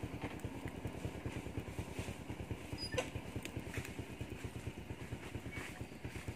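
Small motorbike engine idling with a steady fast putter, and a few sharp crackles from the campfire over it, the loudest a pop about three seconds in.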